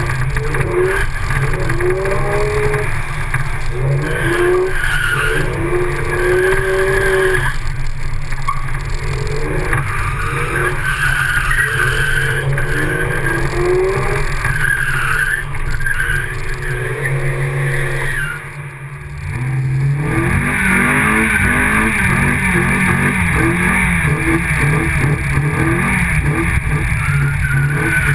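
Car engine revving up and down again and again while the tyres squeal and skid across wet pavement as the car drifts. Near the middle the sound drops off briefly, then the engine climbs through the revs again.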